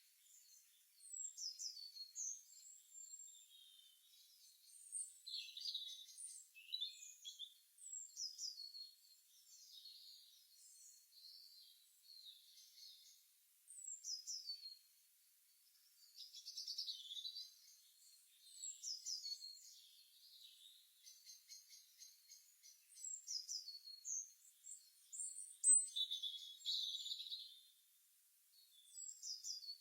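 Songbirds chirping in an early-morning chorus: short, high, mostly falling chirps and trills in bouts of a few seconds with brief pauses between them.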